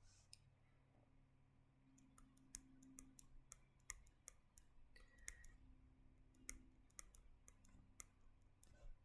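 Near silence broken by faint, irregular clicks, more than a dozen, starting a couple of seconds in.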